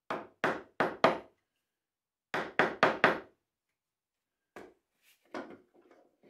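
Claw hammer striking a wooden cabinet assembly: two quick runs of four sharp blows each, then two lighter knocks near the end.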